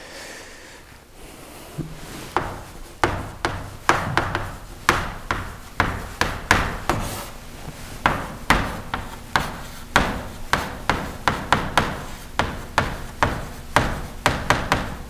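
Chalk writing on a blackboard: a quick run of sharp taps and short scrapes, a few each second, as words are written and underlined.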